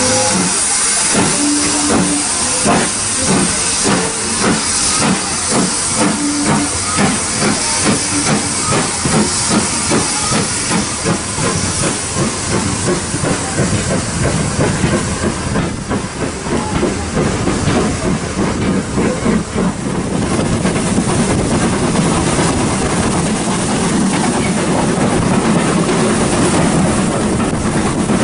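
Steam locomotive pulling away with a train, its exhaust beats coming quicker and merging into steady running noise as it gathers speed, heard from a carriage window.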